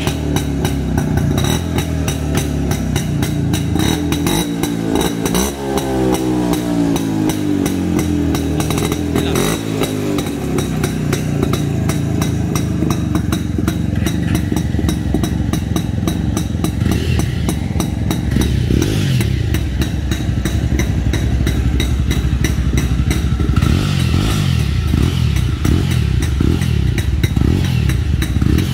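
Yezdi Roadking's 250 cc two-stroke single-cylinder engine running through its stock twin exhaust, with a rapid, even beat. Its speed rises and falls between about four and ten seconds in, then it settles back to a steadier run.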